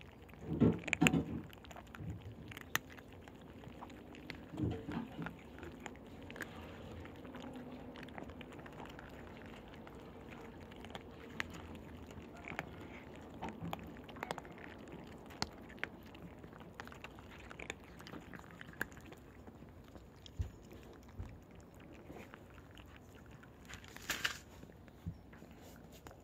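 Cat crunching dry kibble right at the microphone: many small irregular crunches, with a louder cluster of bumps about a second in.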